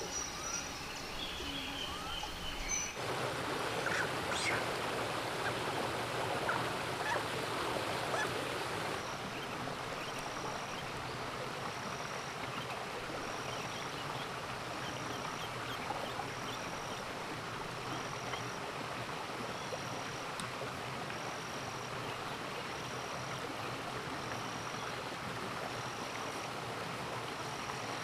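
Steady outdoor hiss with a few bird chirps at the start, then from about a third of the way in a short high-pitched call repeating evenly, roughly once every second and a quarter.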